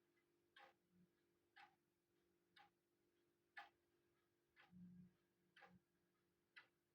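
Faint, even ticking of a Recon quartz wall clock's tick-tock (stepping) movement, one tick a second. A soft low knock comes about five seconds in.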